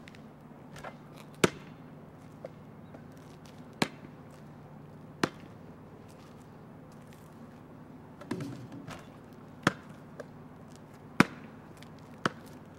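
A ball bouncing on hard ground: about six sharp single knocks at uneven gaps of one to four seconds, over a faint steady hum.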